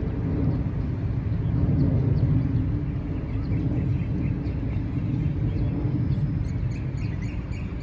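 Outdoor ambience of a city park: a steady low rumble, with faint short high chirps repeating from about three seconds in.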